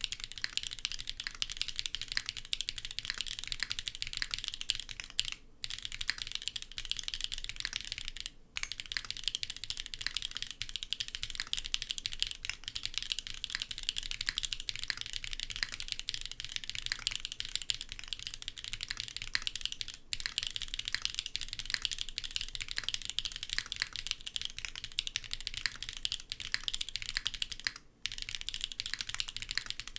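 Custom mechanical keyboard being typed on fast and continuously: a SINGAKBD x TGR Unikorn with an FR4 plate on a gummy O-ring mount, stock SWK x Outva linear switches and GMK keycaps. A dense run of keystrokes breaks off for a moment about five seconds in, again around eight seconds, and once more near the end.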